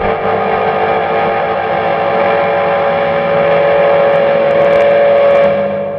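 Electric guitar through a custom reverb pedal pushed into self-oscillation, coming out of a guitar amp as a loud, sustained wall of ringing, overlapping tones. One tone grows stronger midway, and the whole sound fades near the end.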